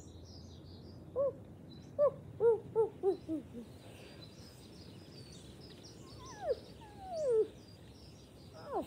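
A person imitating a wolf's voice: a quick run of about six short yips, each lower than the last, then three falling whines later on. Birds chirp faintly in the background.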